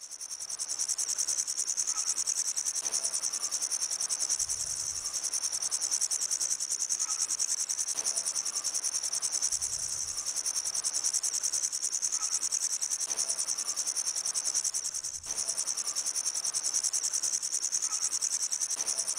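Grasshopper stridulating: a steady, high-pitched buzzing trill of very rapid pulses, with one brief dip about fifteen seconds in.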